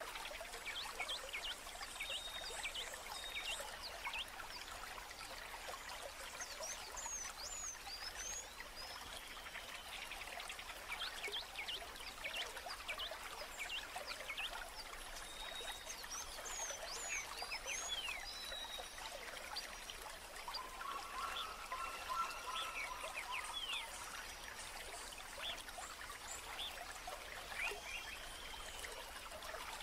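A stream of running water trickling steadily, with small birds chirping over it in many short, quick calls. About two-thirds of the way through, a lower steady call sounds for a few seconds.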